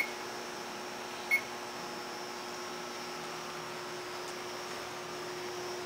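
Keypad on the control panel of a Cincinnati Milacron plastics blender giving short high beeps as its buttons are pressed: one at the start and another about a second and a half in. Under the beeps is a steady electrical hum.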